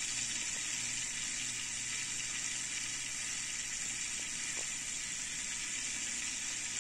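Hang-on-back aquarium filter running: its small motor hums faintly under a steady hiss of water being drawn up and trickling through. There is no squeal, because the burr that had been catching in the impeller housing was trimmed away.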